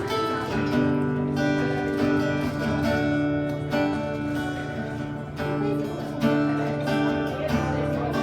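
Acoustic guitar strummed in steady chords, played live without singing.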